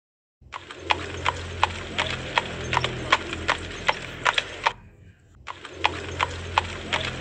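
Hen clucking: a steady run of short, sharp clucks about three a second over a low hum, broken by a brief pause about five seconds in.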